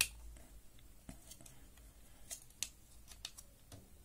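Hard plastic parts of a Transformers Animated Snarl action figure clicking and rubbing as it is transformed by hand, with pieces moved and snapped into place: one sharp click at the very start, then a few lighter scattered clicks.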